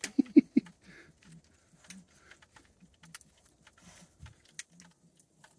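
A small wild animal close by: three short low grunts in quick succession about half a second in, then scattered light clicks and faint low huffs.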